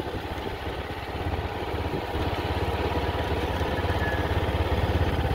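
Small gasoline engine of a farm runabout vehicle running steadily as it drives along, a low even engine note that grows a little louder toward the end.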